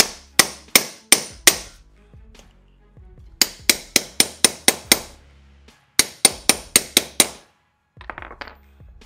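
Hammer tapping on an old bearing used as a driver, pressing a new bearing into a belt tensioner pulley: three runs of sharp metal strikes, about three a second, with a few lighter clicks near the end.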